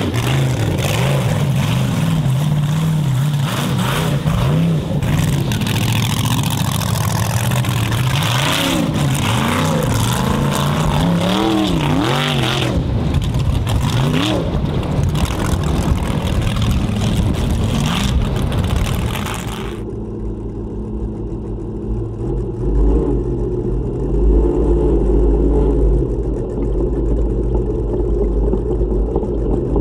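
A Formula Offroad competition car's engine revving hard, its pitch swinging up and down repeatedly. About two-thirds of the way through, the sound changes abruptly to a muffled, steady low rumble.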